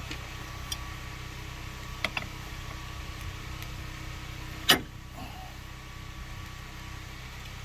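Crescent wrench working a battery terminal bolt: a few light metallic clicks, then one sharp clank a little under five seconds in, over a steady low hum.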